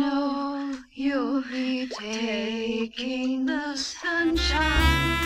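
A woman's voice singing unaccompanied, several held notes with vibrato separated by short breaths. About four seconds in, instrumental music with a bass line and a saxophone-like lead comes in under the singing.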